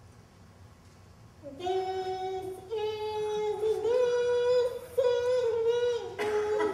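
A woman humming a slow tune with her mouth closed into a handheld microphone, beginning about a second and a half in: a run of long held notes stepping up and down.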